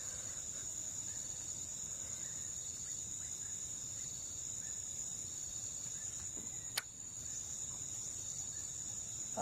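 Steady high-pitched insect chorus, like crickets, holding one unbroken tone. A single sharp click comes near the end.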